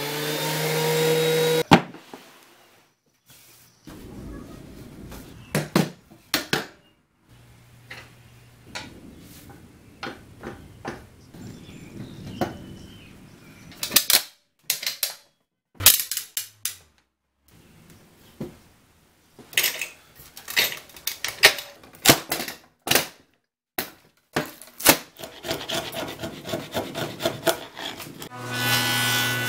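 Benchtop thickness planer running for about the first two seconds, then stopping abruptly. After that come scattered sharp clicks and knocks of bar clamps being set on a laminated board, a chisel scraping off dried glue, and a benchtop jointer starting up near the end.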